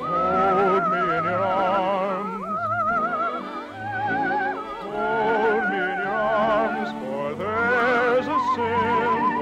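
Operetta singing with wide vibrato and long held notes, heard from a 1948 radio broadcast recording.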